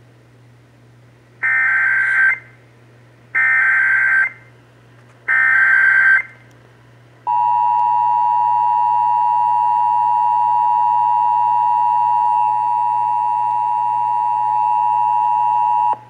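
Emergency Alert System tones from WBAP-AM through a Midland weather radio's speaker: three bursts of SAME digital header data, each about a second long, then the steady two-tone attention signal starting about seven seconds in. Together they open an alert for a severe thunderstorm warning.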